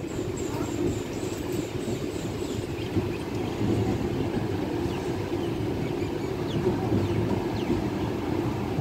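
Kerala Superfast Express passenger train rolling along the track: a steady, even rumble from its wheels and coaches.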